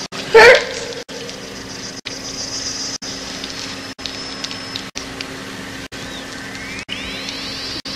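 Horror-film soundtrack: a steady droning hum with a thin high whine over it. About half a second in there is a brief, very loud cry that falls sharply in pitch, and near the end a pitched whine rises.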